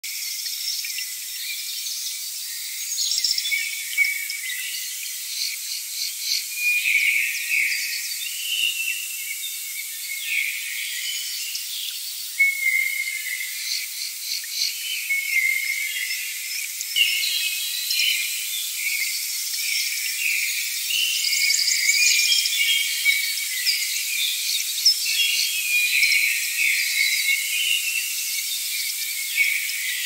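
Nature ambience of many small creatures chirping and trilling all at once, thin and high-pitched with no low sound at all.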